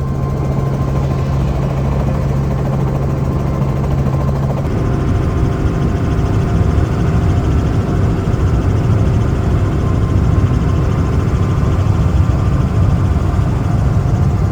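Small tour helicopter's engine and rotor running steadily. About four and a half seconds in, the even hum changes to a rougher, slightly louder rumble.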